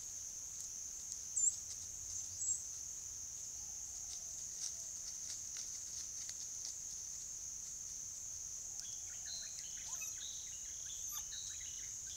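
Dry-forest ambience: a steady high-pitched insect drone, with two short bird chirps in the first few seconds and a run of quick bird notes in the last three seconds. A few faint ticks are scattered through.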